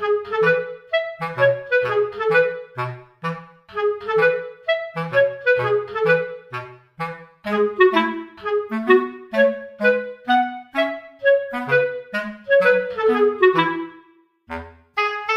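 Background music: a bouncy tune of short, separate notes on a clarinet-like woodwind over a bass line. The notes pause briefly about a second before the end.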